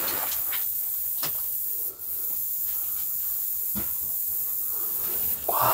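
Steady hiss with a few sharp crunches and clicks of footsteps on loose brick and tile rubble, and a brief voice-like sound near the end.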